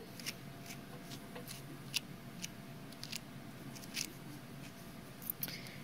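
Wire grooming brush drawn through a dog's freshly trimmed foot fur: a series of faint, short, irregular brushing strokes, spread through a quiet stretch.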